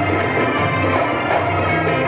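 Live Arabic ensemble playing baladi music, with accordion, keyboard and hand drums sounding together in a steady, loud layer of held melody over drum strokes.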